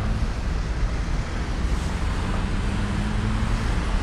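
Steady city traffic rumble, with a faint engine hum through the middle.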